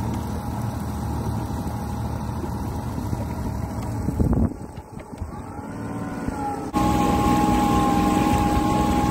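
Honda outboard motor running on a small boat under way. Just past four seconds the level dips and the engine note then rises. Near seven seconds the sound jumps suddenly louder and stays steady.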